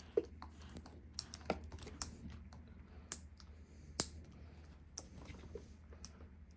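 Faint, irregular small clicks and taps of hands working at the packaging of a catnip spray bottle to get it open. The sharpest clicks come near the start and about four seconds in.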